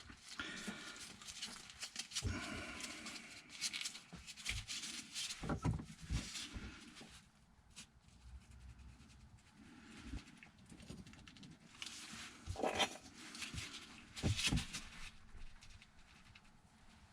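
Irregular knocks, clicks and clatter of pipes and tools being handled under a kitchen sink, with a brief squeak near the start.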